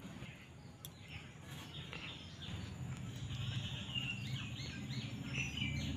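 Small birds chirping: a quick run of short, high notes through the second half, over low steady background noise.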